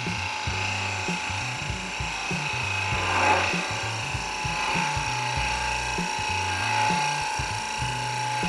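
Wood lathe spinning a spindle blank while a turning gouge cuts along it with its bevel riding on the wood, a steady motor whine under the hiss of the cut, which swells about three seconds in. Background music plays under it.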